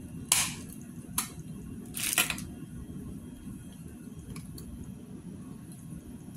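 Plastic doll parts being pushed together, with sharp plastic clicks or snaps: one short click, another about a second in, and a longer scraping snap about two seconds in.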